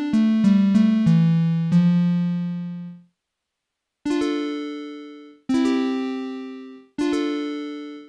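Technics SX-K200 keyboard playing its guitar tone: a quick descending run of plucked notes whose last note rings out and fades, then after a short pause three plucked chords struck about a second and a half apart, each decaying away.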